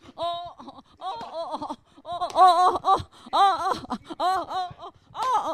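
A woman's voice letting out a string of high wailing cries, about one a second, each rising and then falling in pitch: acted cries of pain as her character is beaten in a stage scene.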